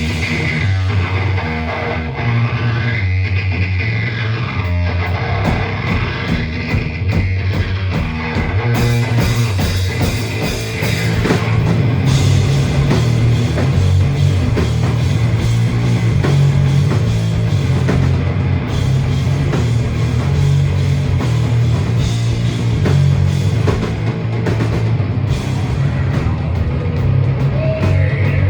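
Rock band playing an instrumental passage live: electric guitar and bass riff over a drum kit, growing louder and fuller about twelve seconds in.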